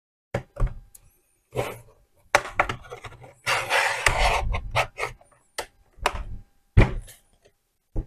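ThinkPad T450 bottom cover being pried loose with a pry tool: a series of irregular clicks and snaps as the cover's clips let go, with about a second of scraping near the middle.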